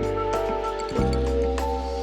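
Background music: sustained synth chords over a deep bass that changes note about once a second.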